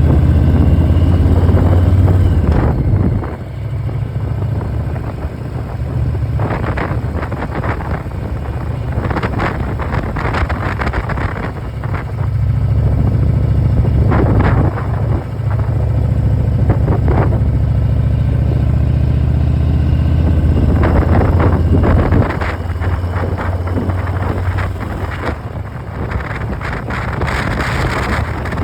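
Harley-Davidson Milwaukee-Eight V-twin running through a Vance & Hines Big Radius exhaust while riding, with wind gusting over the microphone. The engine note drops about three seconds in and again a little past twenty seconds.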